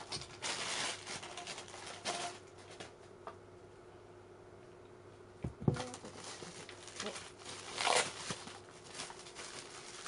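Plastic packaging rustling and crinkling in short spells as it is handled, with a dull thump about five and a half seconds in.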